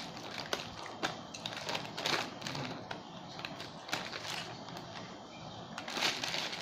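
Thin plastic bag of chili sauce crinkling and rustling in the hands as its tie is unwound and the bag is pulled open, with irregular small clicks and crackles.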